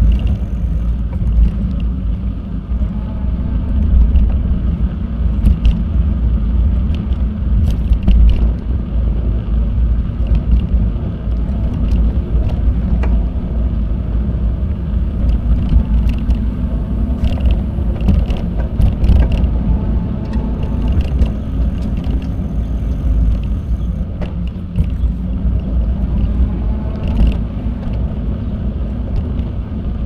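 Riding a bicycle: a steady low rumble of wind and tyre noise, with scattered short clicks and rattles.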